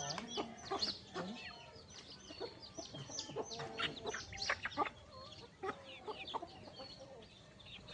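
A flock of desi (native) chickens clucking and calling, with many short calls overlapping one another.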